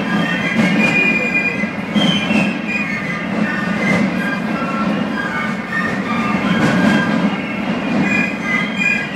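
Fife-and-drum carnival band of piccolos and Basel drums playing: a shrill, high piccolo melody over a dense, steady bed of snare drumming.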